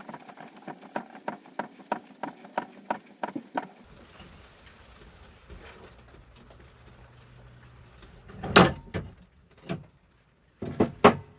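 Even, quick metallic clicking, about three clicks a second, from the mechanism of a rusty 1930s Rain King sprinkler as its head is turned by hand; the clicking stops after about four seconds. Later come a few loud clanks as the heavy sprinkler is tilted and lifted in the vise.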